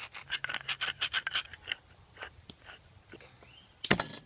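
Salt shaken from a shaker onto raw tilapia fillets, a fast even rattle of about seven shakes a second that stops about a second and a half in. Near the end, one loud short crunch as a knife is pressed down on a garlic clove on the wooden board.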